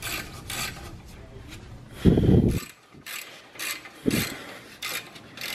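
Ratchet wrench clicking in short strokes while backing out a brake caliper's 14 mm bolt, with two dull knocks about two and four seconds in.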